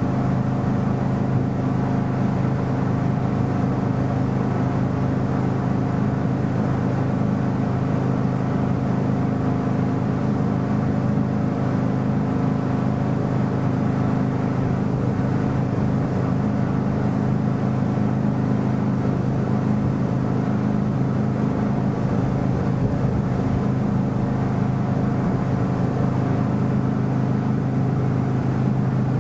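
Motorboat engine running at a steady speed, heard from on board, over the rush of water along the hull.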